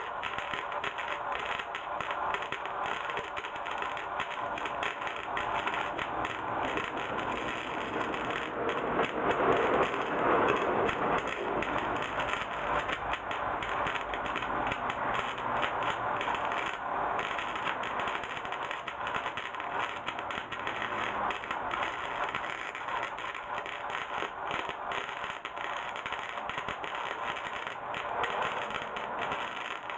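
Welding arc crackling steadily while a hole in a motorcycle's steel muffler is welded shut, a little louder for a few seconds about a third of the way in.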